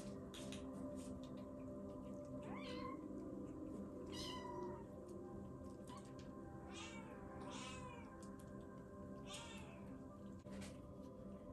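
Young kitten mewing: about five short, high-pitched mews spread through, over a steady low background hum.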